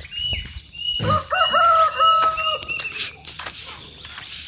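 A rooster crowing once, a stepped call of several held notes lasting about a second and a half, starting about a second in. A small bird calls with short high notes repeated about twice a second over the first half.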